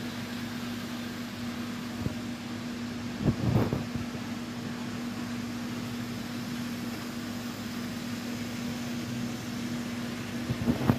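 HO scale model train running on layout track: a steady electric motor hum with two short bursts of clatter, one about three and a half seconds in and one near the end, where the hum stops.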